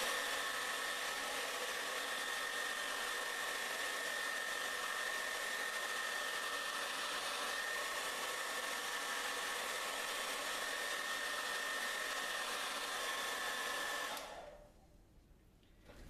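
Domestic hair dryer on its high setting blowing air through a funnel taped on as a nozzle: a steady rush of air with a steady high whine. It is switched off about two seconds before the end and winds down to near silence.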